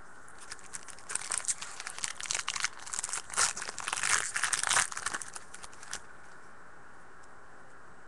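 A trading-card pack's wrapper being torn open and crinkled, a dense crackling for about five seconds that stops abruptly near six seconds in.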